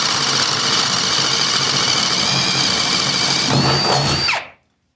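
Ridgid Gen 5X brushless Stealth Force hydraulic pulse driver boring a 1/2 inch Spyder spade bit through pressure-treated wood: a steady high motor whine with the bit's cutting noise. Near the end the whine lifts in pitch, then winds down and stops.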